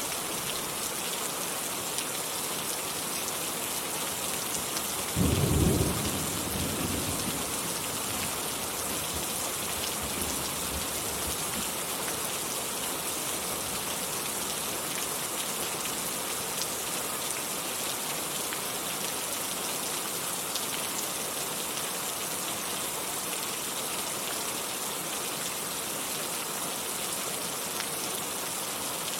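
Steady rain falling, with one sudden thunderclap about five seconds in that rumbles away over the next few seconds.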